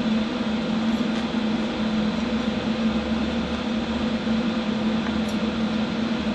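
HHO (oxy-hydrogen) torch flame hissing steadily while it heats a copper plate to melt solder, with a steady low hum underneath.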